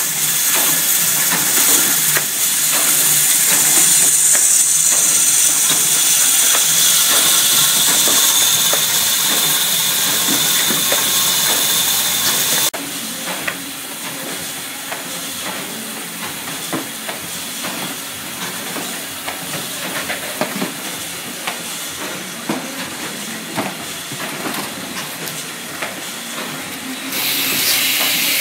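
Hang 150-08 automatic double-head ring-binder riveting line running: a steady hiss over a clatter of small knocks and clicks. About halfway through the sound suddenly drops to a quieter run with frequent clicks and knocks, and it grows louder again near the end.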